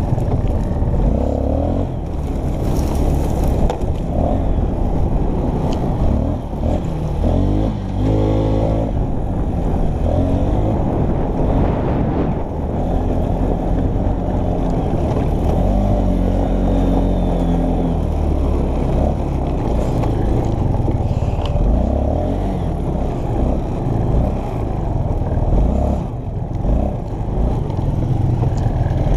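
ATV engine running under load while the machine is ridden over rough, rutted ground, the revs rising and falling with the throttle, with occasional scrapes and rattles.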